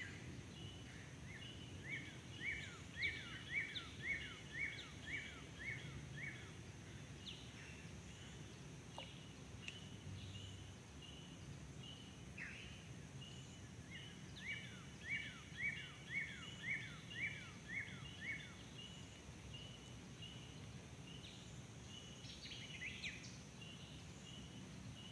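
Faint birdsong: a songbird sings a run of about eight down-slurred whistled notes, about two a second, twice (a couple of seconds in and again past halfway). Beneath it run a steady high hum and regular short high chirps.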